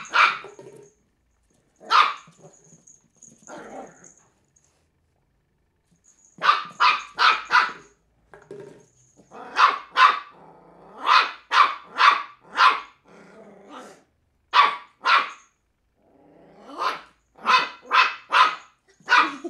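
Three-month-old cairn terrier puppy barking in play at an empty plastic bottle: about two dozen short barks in bursts of one to four, with pauses between.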